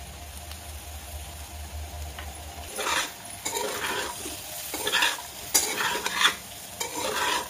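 Steel spatula stirring and scraping diced potatoes around a kadhai while they sizzle, in a run of scraping strokes about one a second that starts about three seconds in.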